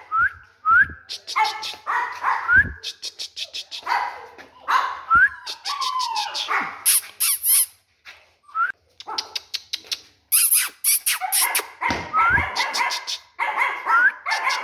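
Small Pomeranian puppies yapping: quick runs of short, high-pitched barks and rising yelps, with a brief pause about eight seconds in.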